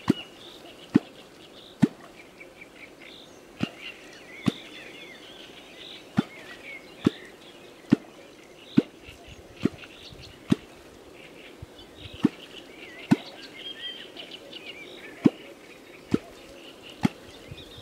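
Kvok, the hand-held catfish call, being struck down through the water, making a sharp low pop with a small splash about once a second, some sixteen times with short gaps. Birds chirp in the background.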